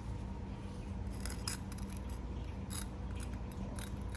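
Crispy roast pork belly crackling being handled, giving a few short clusters of sharp, crisp crunching crackles over a steady low hum.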